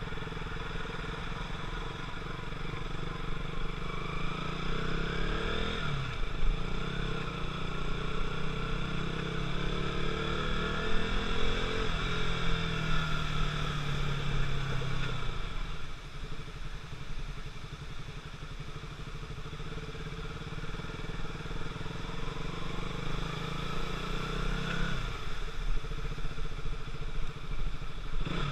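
KTM RC 200's stock single-cylinder four-stroke engine and exhaust, revs climbing and holding several times, with a sharp dip about six seconds in. It falls back to idle about halfway through, rises again, and drops back near the end.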